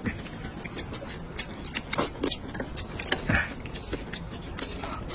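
Close-up eating sounds: noodles being slurped and food chewed, with irregular short smacks and clicks and a couple of louder slurps about two and three seconds in.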